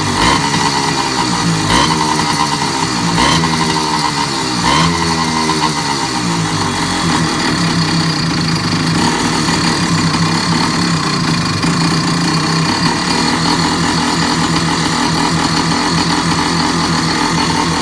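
Moped engine with a gutted, de-baffled exhaust, blipped four times about a second and a half apart with the revs rising and falling each time, then settling to a steady idle.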